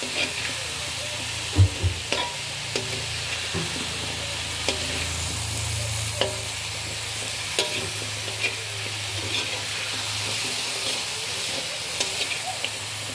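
Squash, garlic and long beans sizzling as they are stir-fried in a wok, with a ladle scraping and clicking against the pan now and then. The loudest is a knock of the ladle on the wok about a second and a half in.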